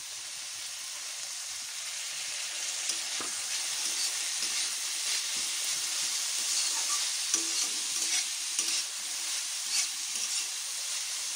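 Shredded cabbage sizzling as it is stir-fried with carrots, peas and capsicum in a metal kadai, a metal spatula scraping and clicking against the pan. The sizzle grows louder over the first several seconds.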